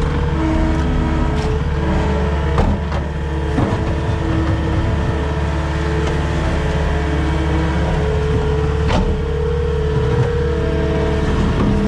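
Skid steer engine running steadily under work, heard from the operator's seat, with several sharp knocks from the bucket working through concrete and debris.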